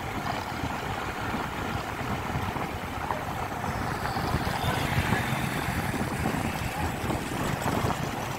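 Steady running noise of a moving vehicle, with wind buffeting the microphone.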